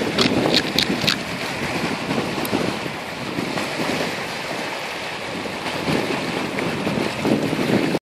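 Wind buffeting the microphone over shallow surf washing across wet sand. A few sharp clicks come in the first second or so as a hand digs in the sand.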